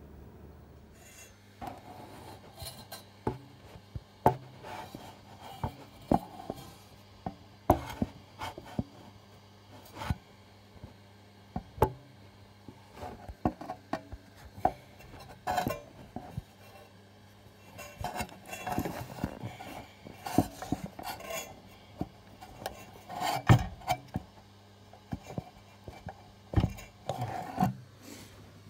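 Close handling noise: irregular rubbing and scraping with sharp knocks and clicks, starting about a second and a half in, over a steady low hum.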